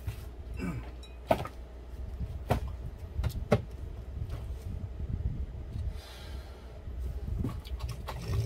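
A suction machine running with a low rumble, drawing water out of a printhead's ink chamber during flushing, with a few sharp clicks and knocks and a brief hiss in between.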